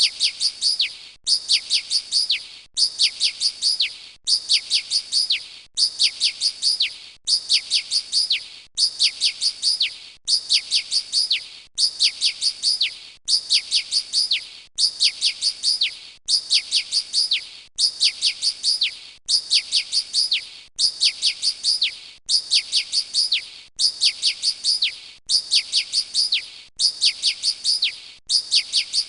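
Looped bird-chirp sound effect: a short burst of half a dozen quick, high chirps, each falling slightly in pitch, repeated the same way about every second and a half.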